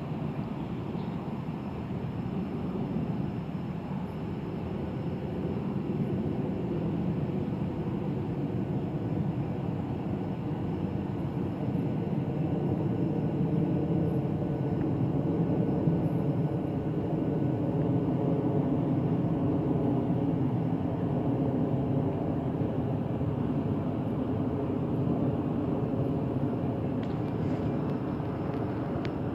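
Boeing 747-8 freighter's four GEnx turbofan engines passing overhead: a steady jet rumble that grows louder over the first half and eases slightly near the end.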